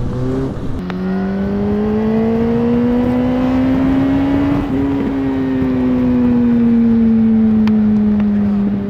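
2006 Yamaha R1's inline-four engine through the stock exhaust, revs climbing steadily for about four seconds under throttle, then easing off and falling slowly, over a rush of riding noise.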